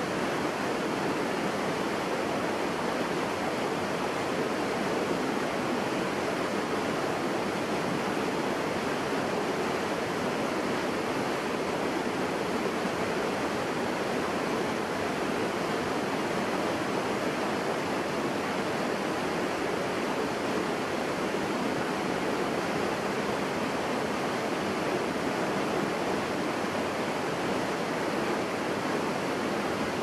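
Rocky forest stream rushing and splashing over boulders in small rapids: a steady, even rush of water.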